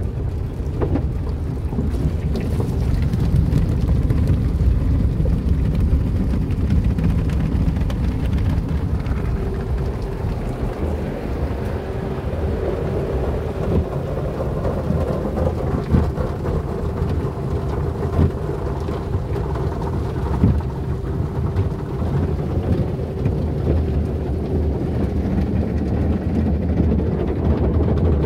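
Soft-cloth automatic car wash heard from inside the car: cloth strips and water sweep and pound over the body and glass, with a steady machine hum and a couple of sharper thumps about halfway through.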